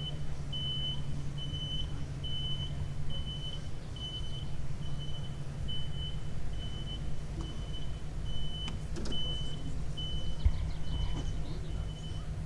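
A vehicle's reversing alarm beeping, a single high tone a little faster than once a second, over a steady low hum, with one thump about ten seconds in.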